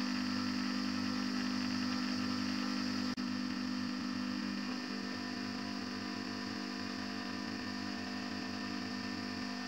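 Lidl electric ice cream maker running with a steady hum, its motor turning the paddle in the freezer bowl while the chocolate mixture is poured in.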